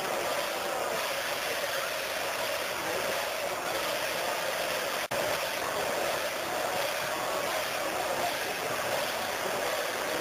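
Large crowd: a steady wash of many voices at once, with no single voice standing out. The sound cuts out for an instant about halfway through.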